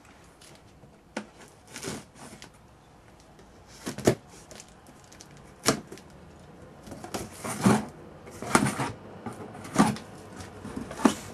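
A shipping package being opened and handled by hand: irregular knocks, scrapes and crinkling rustles every second or so as the box and its packing are pulled open.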